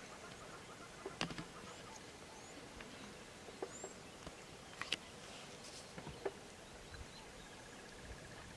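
Quiet bush ambience: a steady faint insect hiss with a few faint, high, short bird chirps, and four or five scattered sharp clicks or snaps.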